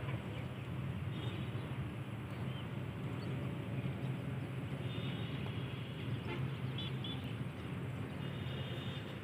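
Steady low outdoor rumble, with a few faint high bird chirps about halfway through and near the end.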